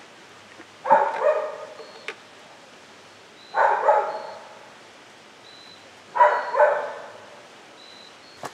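A dog barking in three bursts of two barks each, about two and a half seconds apart.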